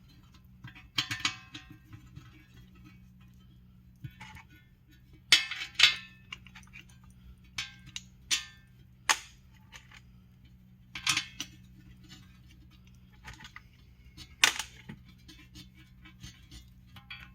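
Scattered sharp metal clinks and taps at irregular intervals from a transmission pan and its bolts being handled and set in place, over a faint steady low hum.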